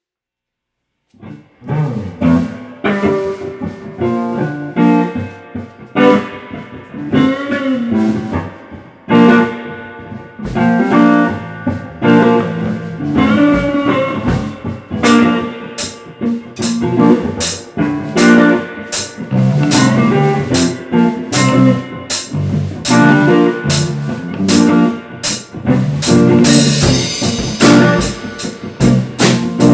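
A band jamming: guitar playing with a drum kit, starting about a second in, the drums growing busier and louder with cymbal hits about halfway through.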